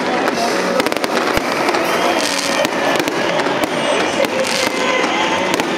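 Fireworks display: aerial shells bursting in a rapid run of sharp cracks and bangs over a continuous crackling hiss, with a few faint whistling glides.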